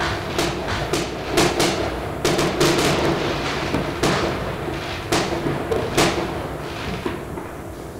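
New Year's fireworks and firecrackers going off, a dozen or so sharp bangs in irregular quick succession, each trailing off in a short echo. The bangs thin out and the din fades after about six seconds.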